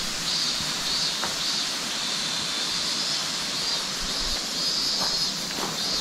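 Steady rushing of the river in the gorge below, with a higher hiss that swells and fades every second or so. A few faint taps of footsteps on the trail.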